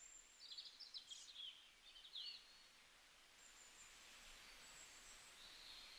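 Faint small-bird chirps in the first two seconds or so, over a low steady hiss of outdoor ambience.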